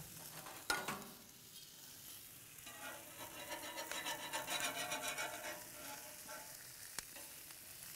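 Sausages sizzling on a barbecue's hot ridged grill plate as they are turned with metal tongs. A louder stretch of sizzling and scraping comes about three seconds in and lasts a few seconds, with a couple of sharp metal clicks.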